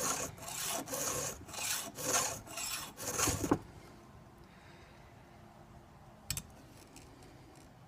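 Hand file stroking across a chainsaw chain's cutting tooth: a quick series of rasping strokes that stops about three and a half seconds in, followed by a single sharp click a little past six seconds.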